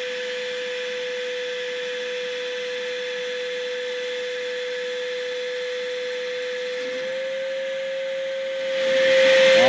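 Vacuum cleaner running steadily, its hose nozzle pressed to the end of a buried electrical conduit to suck a nylon pull rope back through it: a steady whine over rushing air, the whine stepping up slightly in pitch about seven seconds in.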